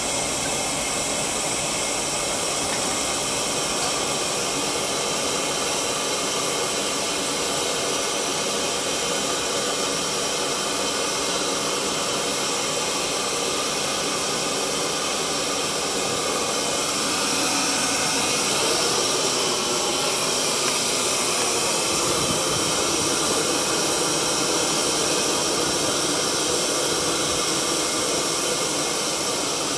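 Steady rushing noise of a kiln being fired, its burners running hard, with a hiss on top; it gets a little louder just past halfway.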